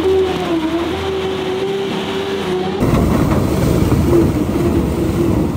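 Fat Truck eight-wheeled amphibious ATV with its small four-cylinder Caterpillar diesel, driving through slushy water with a steady engine and drivetrain whine that wavers in pitch. About three seconds in, a louder, rough rush of the big balloon tyres churning mud and water takes over, with the whine still faintly under it.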